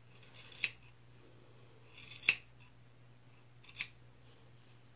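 Scissors snipping through a held section of curly hair: three crisp cuts about a second and a half apart, each with a brief rasp as the blades close.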